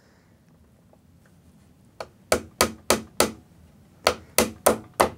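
Small hammer tapping a brad into a wooden trim strip: after a quiet start, two quick runs of about five taps each, about four a second, with a short pause between them.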